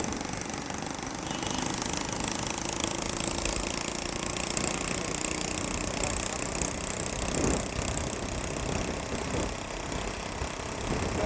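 Vehicle engine running with a fast, rough pulse, mixed with steady rushing noise from riding along.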